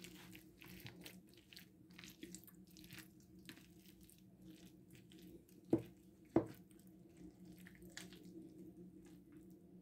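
A utensil stirring and squishing through a mayonnaise-coated potato, beetroot and chicken salad in a tray, faint wet clicks and squelches throughout, with two louder knocks a little past halfway, half a second apart.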